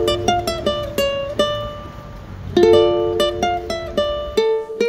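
Intro music: a short tune of plucked string notes in two quick phrases.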